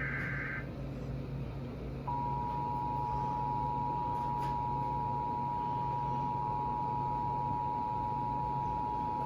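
Emergency Alert System header: the last burst of screechy SAME data tones ends just after the start. About two seconds in, the steady two-tone EAS attention signal starts and holds, announcing a flash flood warning. A steady low hum runs underneath.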